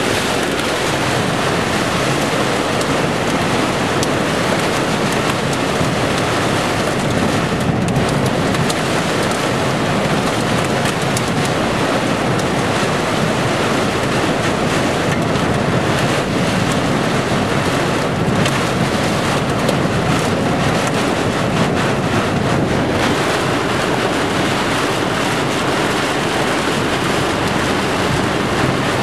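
Torrential rain pelting a moving car, a steady loud hiss of rain and tyre spray on a wet road, with many sharp drop hits scattered through it.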